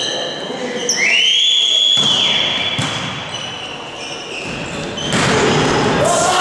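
A referee's whistle gives one long high blast about a second in. Crowd noise and applause swell up about five seconds in, with a few ball or footfall thumps in between.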